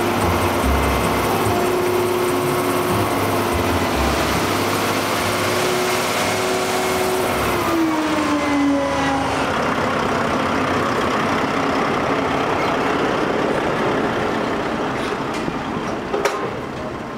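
Dump truck's diesel engine running steadily while the raised bed tips a load of gravel road base out the back, with the hiss of gravel sliding out. About 8 seconds in the engine's pitch drops, and near the end there are a few sharp clicks as the truck moves off.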